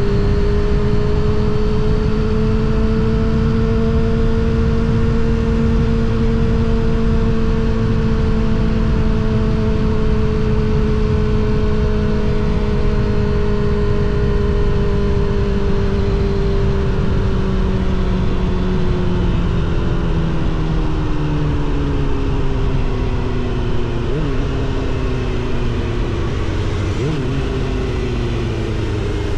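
Suzuki GSX-R750 SRAD inline-four running through a Yoshimura R77 exhaust while riding, holding steady revs, then dropping slowly in revs over the last ten seconds or so, with wind rush underneath.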